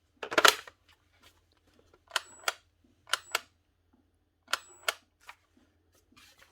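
Trigger of a Milwaukee M18 cordless planer pulled and released three times, each pull and release a sharp click about a third of a second apart with a faint high tone between them, but the motor does not run: a failed bearing has seized it. A short handling rattle comes first.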